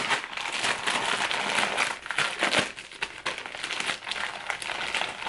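Printed plastic mailer bag crinkling and crackling as it is handled and pulled open: a dense run of rapid crackles with a couple of brief lulls.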